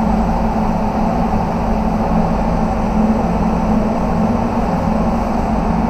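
Spray booth ventilation fans running: a steady rush of air with a constant low hum.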